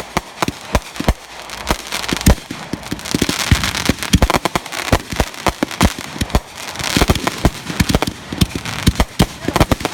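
Consumer fireworks going off in quick succession: dozens of sharp bangs and pops over a steady crackle, thickest near the middle and again about two thirds of the way in.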